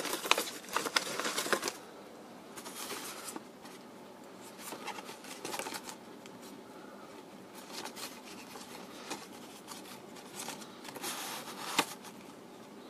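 Paper rustling as a folded owner's manual is pulled out and opened out by hand. The rustling is loudest in the first two seconds, then comes back softer now and then as the sheet is handled, with one sharp click near the end.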